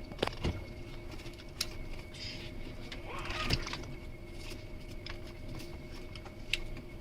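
Small clicks and handling noises of an electrical wire's insulation being stripped back, with a short scraping swell about three and a half seconds in, over a faint steady hum.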